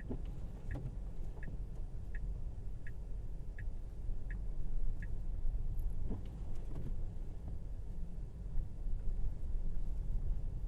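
Steady low road and tyre rumble inside a Tesla Model Y driving on snowy roads, with a light regular ticking, about one and a half ticks a second, that stops about halfway through.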